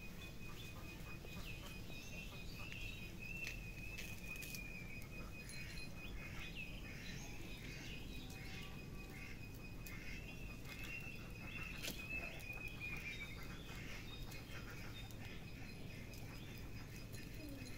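Outdoor ambience: small birds chirping over a steady high-pitched tone, with light patter and rustling.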